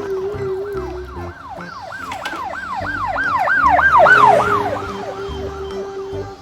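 Fast electronic yelp siren, its pitch sweeping up and down about three and a half times a second; it swells louder to about four seconds in, then fades. A steady lower tone sounds beneath it near the start and again in the second half.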